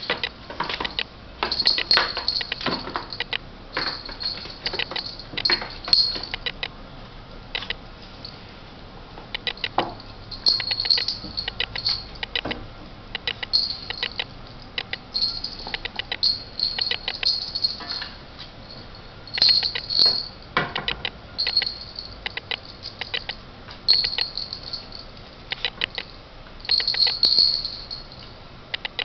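Ferret scampering and scuffling, its claws clicking and scratching on a wooden floor and a plastic pet carrier in quick, irregular flurries as it drags and tosses a dead chick.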